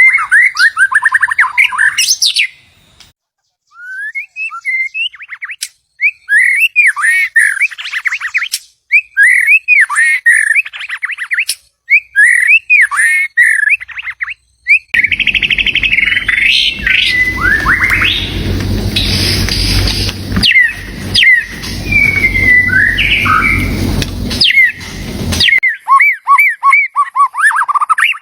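White-rumped shama singing: a string of varied, rich whistled phrases with short pauses between them. About halfway through, a low rushing noise runs under the song for about ten seconds.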